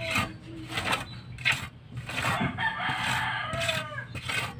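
A rooster crowing once, an arching call of about two seconds starting about two seconds in. Before it, a few short sharp scrapes of a trowel working mortar on a wall.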